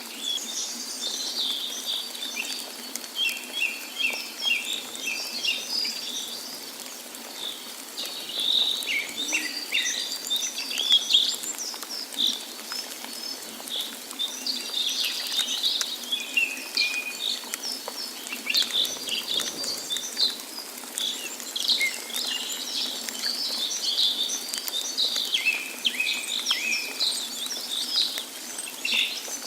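Several birds singing and chirping, short quick notes and trills overlapping one another, over a steady hiss of running water.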